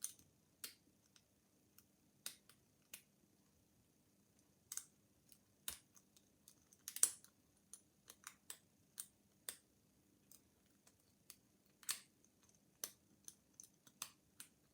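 Faint, irregular small metallic clicks of a bobby pin working inside an Egret padlock against a tension tool, picking the pins.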